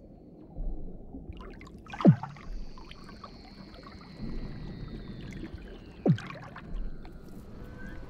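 Weddell seals calling under the ice: two sharp chirps that sweep steeply down in pitch, about two seconds and six seconds in, and between them a long whistle that slowly falls, over a low watery hiss.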